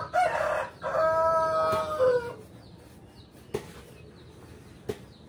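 A rooster crowing once, a drawn-out crow of about two seconds that drops in pitch at the end, followed by two faint knocks.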